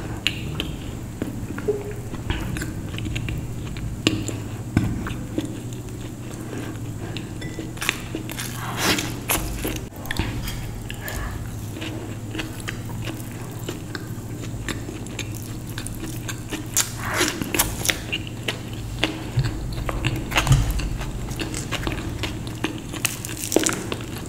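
Close-miked eating: repeated bites and chewing, with crisp crunches and crackles, heaviest about a third of the way in and again over the last third. A steady low hum runs underneath.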